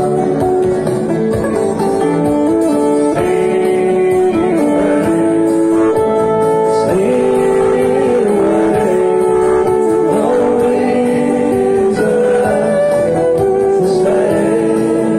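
Acoustic street band playing: several acoustic guitars strumming the chords while a fiddle plays the melody in long, sliding notes.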